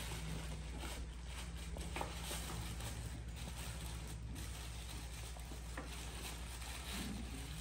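Soft rustling and small clicks of a gift box and cloth pouch being handled and opened, over a low steady hum.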